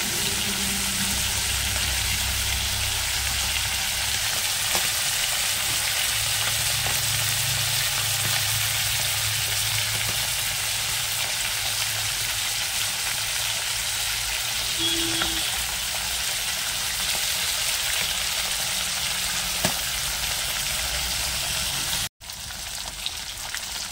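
Whole tilapia shallow-frying in hot oil in a kadai: a steady sizzle, with a brief break near the end.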